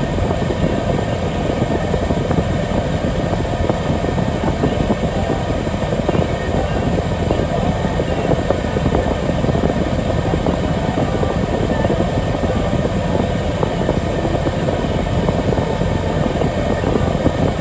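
Steady diesel engine drone heard from inside a vehicle cab, with a log loader working nearby.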